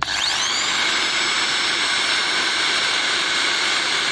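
Bosch GSB 550 impact drill switched on in hammer mode and running free with no load. Its motor whine rises to full speed within about half a second, then holds steady.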